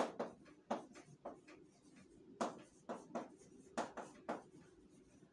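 Chalk writing on a blackboard: an irregular run of short, sharp chalk strokes and taps.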